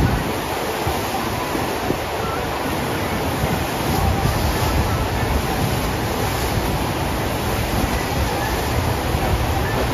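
FlowRider surf simulator's sheet of pumped water rushing up the ride surface: a steady, loud rush of water and spray, with wind buffeting the microphone.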